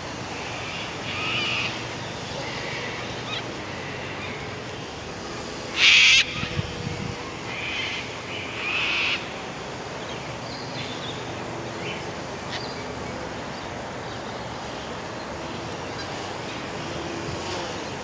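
Steady wind noise with scattered short bird calls, and one short loud burst of noise about six seconds in.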